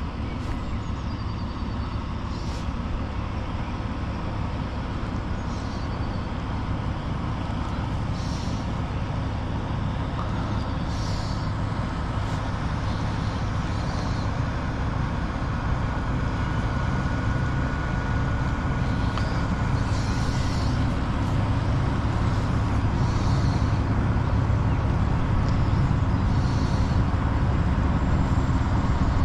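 Ship's engine on the canal: a low, steady drone that grows gradually louder as the vessel approaches.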